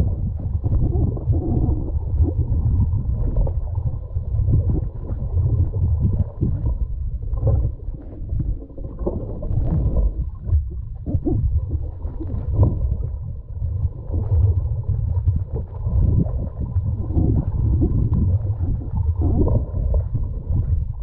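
Muffled underwater rumble and gurgling of water moving over a submerged camera's housing as the swimmer moves. It is a continuous low churning that swells and fades, with scattered faint crackles and nothing above a dull, boxed-in tone.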